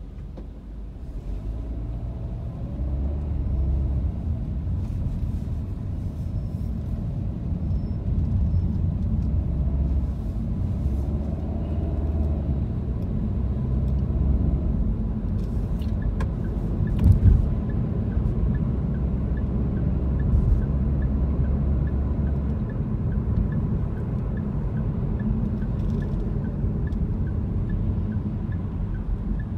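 Car driving in traffic, heard from inside: a steady low rumble of engine and road noise. There is a single thump a little past halfway, and through the second half a light, regular ticking about once a second.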